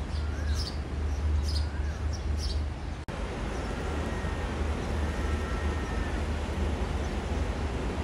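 Steady low rumble of a diesel railcar idling in a rail yard, with small birds chirping a few times. After a cut about three seconds in, the rumble goes on with faint, high, drawn-out tones.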